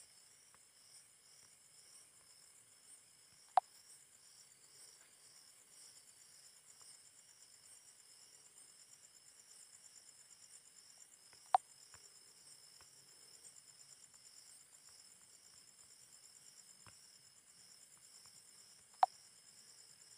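A faint, steady chorus of insects chirping in a fast pulsing rhythm, broken by three sharp clicks several seconds apart.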